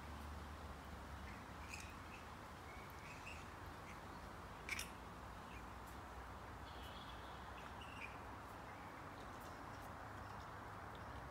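A roosting colony of grey-headed flying foxes giving scattered short squawks and chittering calls, with one sharper call about five seconds in, over a steady background hiss.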